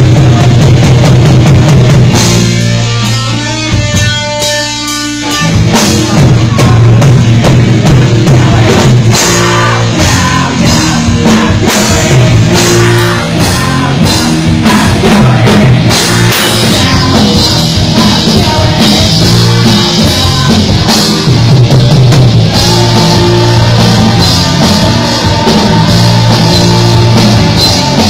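Live rock band playing loud: drum kit and electric guitar at full volume, with a brief thinner, quieter break about three seconds in before the full band comes back.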